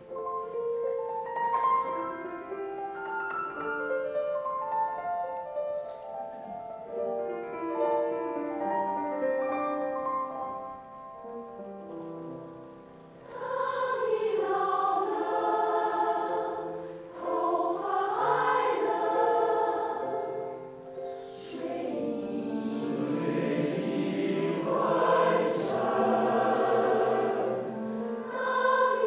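A choir singing. A softer passage of held, stepping notes swells about a third of the way in into full, louder choral singing.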